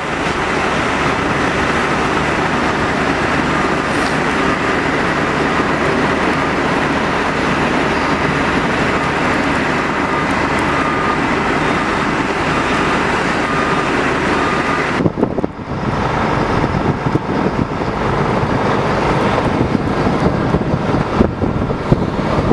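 Steady noise of running vehicle engines. About 15 seconds in it changes abruptly to a lower, more uneven rumble.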